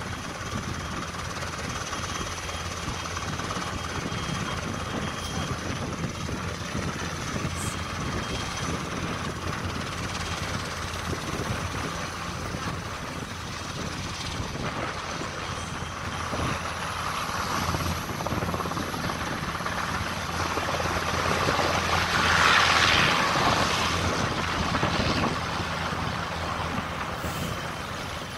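Helicopter running and lifting off, its rotor and turbine making a steady drone with a faint high whine. Cars drive past close by, and a swell of passing-vehicle noise is loudest about two-thirds of the way through.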